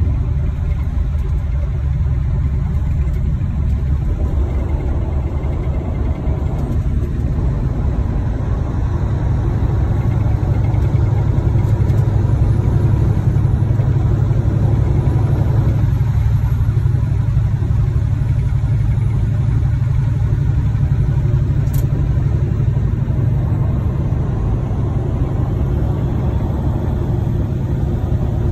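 Steady low drone of a semi-truck's diesel engine and road noise, heard inside the cab at highway speed.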